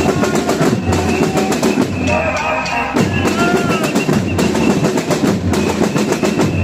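Drumming in a fast, steady beat of many sharp hits, with a deep drum thumping about once a second.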